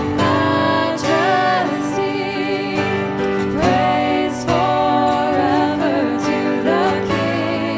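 Worship music: a singing voice with a wavering, held melody over guitar accompaniment.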